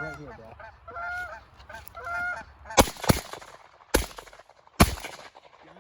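Canada geese honking as a flock comes in low, then four shotgun blasts in quick succession, the first two close together and the others about a second apart.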